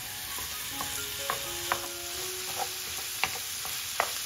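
Minced beef sizzling in a hot frying pan while a wooden spoon stirs and breaks it up, knocking sharply against the pan several times.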